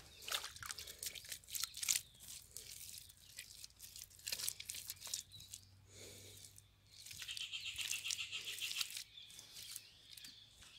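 Hands scraping and smoothing wet mud plaster over the rim of a mud-built grill stove, making irregular scratchy, crunchy rubbing sounds. A high, fast trill comes in for about two seconds near the end.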